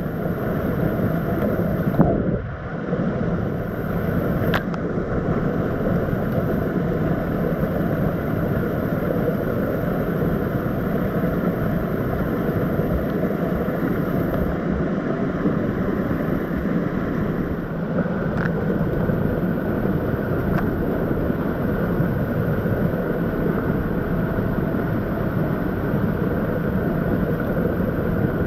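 Whitewater rushing over rocks in a small stream cascade right beside the microphone: a loud, steady roar. A brief knock about two seconds in.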